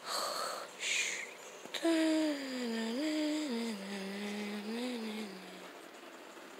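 Fabric rustling briefly twice, then a person humming a short wandering tune for about four seconds, its pitch stepping up and down and ending lower.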